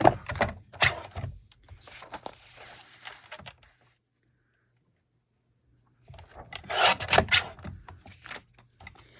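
Paper trimmer cutting sheets of paper: the blade scraping along its track, with clicks and knocks as the paper and trimmer are handled. Two spells of cutting and handling, with about two seconds of silence between them.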